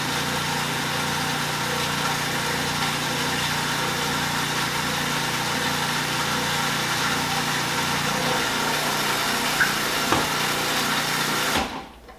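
Food processor motor running steadily while olive oil is drizzled in to emulsify a sauce. It switches off abruptly near the end.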